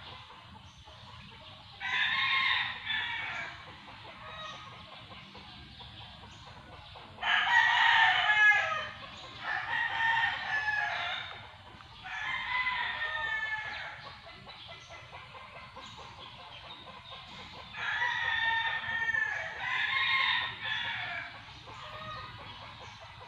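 Roosters crowing: about six long, drawn-out crows, each lasting a second or two, two of them coming in quick pairs.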